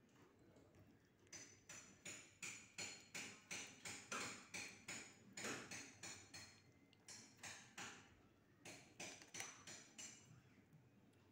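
Kitten licking and chewing wet cat food off a plastic spoon: faint, wet smacking clicks about three a second, stopping briefly a few times.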